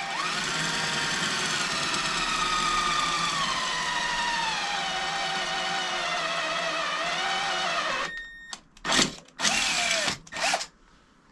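Power drill boring a hole through a bicycle frame: a steady motor whine that sags slowly in pitch as the bit cuts, stopping about eight seconds in. A few short bursts of the drill follow.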